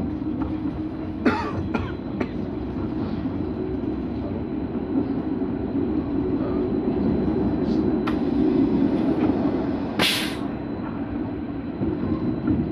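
A London Tramlink tram running, heard from inside the passenger cabin: a steady rumble of wheels on rail that swells slightly about eight seconds in. A few sharp clicks come between one and two seconds in, and a short hiss about ten seconds in.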